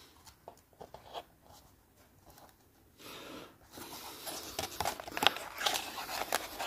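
Faint handling noises as pliers and fingers squeeze the metal lugs of a Peco PL-10 point motor over onto a plastic model railway point: a few soft ticks, then from about three seconds in rustling scrapes and small clicks.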